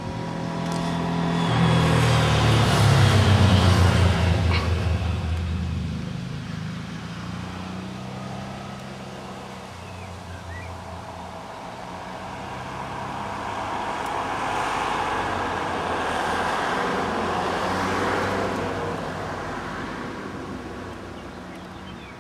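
Road traffic noise of motor vehicles going past. First comes a loud swell of engine hum and tyre noise a few seconds in, then a second, broader rush of passing-vehicle noise in the second half that fades toward the end.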